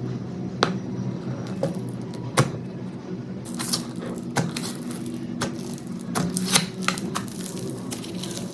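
Slime worked by hand, making sharp popping clicks: a couple of single pops early, then a quicker run of them in the middle, over a steady low background.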